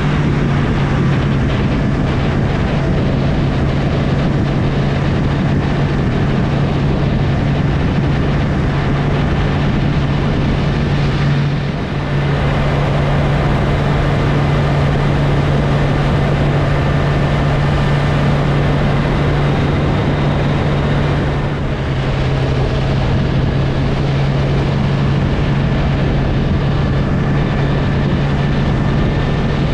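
Motorcycle engine running steadily while riding, over a thick rush of wind and road noise. The engine note dips briefly twice, about twelve and twenty-two seconds in, as if the throttle is eased.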